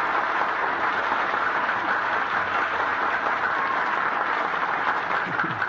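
Studio audience applauding steadily, heard on an old-time radio broadcast recording.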